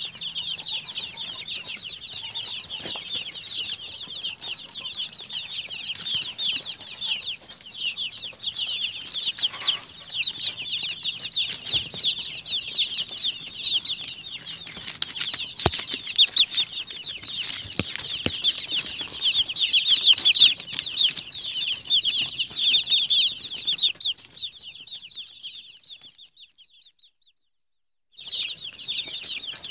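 A brood of young broiler chicks peeping: many high, overlapping chirps going on without a break. The peeping fades away about 25 seconds in and cuts to silence for about a second, then comes back at full strength.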